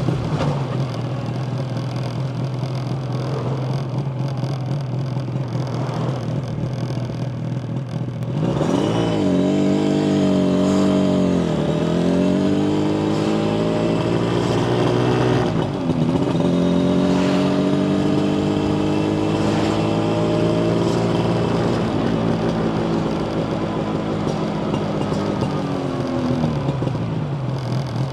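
Yamaha TZR250 1KT's two-stroke parallel-twin engine idling steadily, then about 8 seconds in pulling away and revving up, with two brief drops in revs as it shifts up. Later the revs fall off slowly and it settles back to idle near the end.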